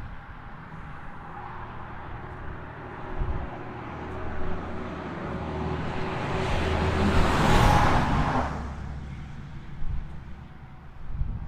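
Road traffic: a vehicle passes close by on the highway, its tyre and engine noise building over several seconds, loudest about seven and a half seconds in, then fading away.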